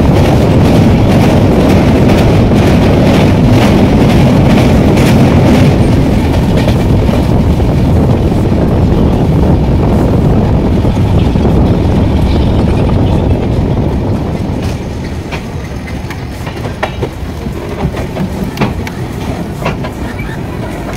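Indian Railways express train running on the rails, with a loud rumbling clatter of wheels over the track. About two-thirds of the way in it drops to a quieter rumble with a few sharp clicks.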